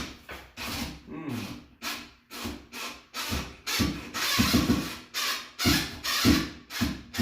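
An old screw being worked by hand into a GFCI outlet's mounting hole: a run of irregular scraping and rubbing strokes of metal on metal. The screw is not seating well.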